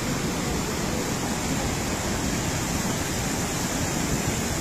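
Muddy floodwater rushing in a steady torrent, an even wash of noise without breaks.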